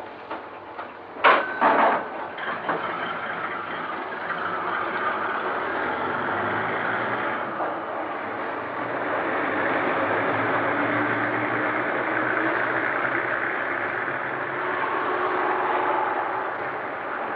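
City bus engine running as the bus pulls away and drives off, a steady noisy sound that builds and holds. About a second in come two sharp, loud strikes with a short ring after them.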